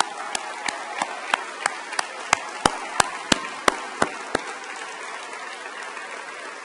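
Hand claps close to the microphone, about three a second, stopping about four seconds in, over the continuous applause of an audience.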